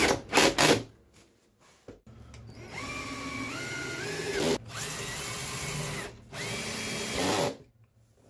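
Cordless drill-driver driving screws through an aluminium wrap stair nosing into the tread: a few short bursts near the start, then three runs of a second or two each with a motor whine that steps up in pitch during the first run.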